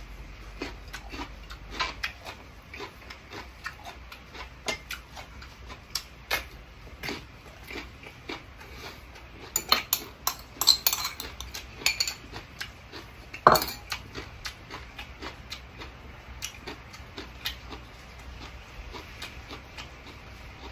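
Chopsticks and a metal spoon clinking and scraping against a small ceramic bowl during a meal, with scattered light clicks, a busy run of clinks about ten seconds in and one sharp knock a few seconds later.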